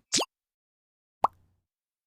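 Edited-in cartoon sound effects: a quick upward-sliding bloop, then about a second later a single short, sharp pop.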